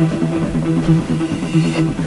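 Recorded dance music playing, with a steady repeating beat and a looping pattern of notes.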